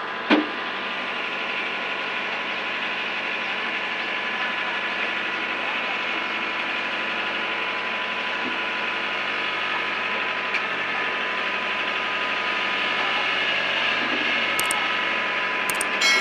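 Combine harvester's engine running steadily, with a sharp knock just after the start and a few light clicks near the end.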